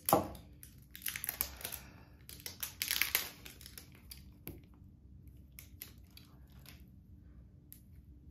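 Snack packaging of spicy cheese puffs being torn open and crinkled. A sharp snap comes right at the start, then two spells of crinkling in the first few seconds, then scattered light clicks and rustles.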